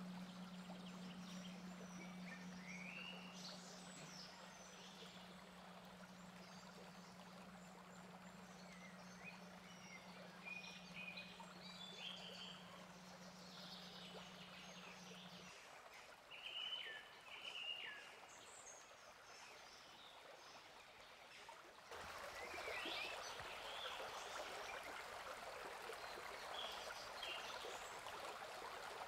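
Small birds chirping and singing over a faint steady low hum, which stops about halfway through. About three quarters of the way in, the rushing of a river joins the birdsong and stays louder to the end.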